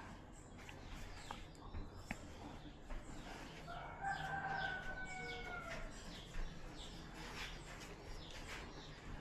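A rooster crowing once, a single long drawn-out call about four seconds in, over faint scattered clicks and taps.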